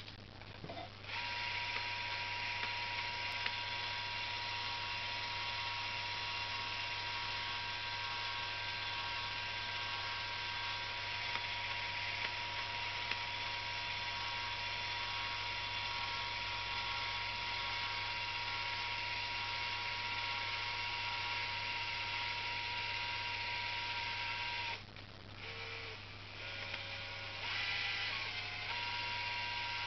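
Cordless drill motor running at a steady speed, spinning a wooden finial held in its chuck so that paint can be brushed on. It starts about a second in. Near the end it drops away and changes speed for a few seconds, then settles back to the same steady whine.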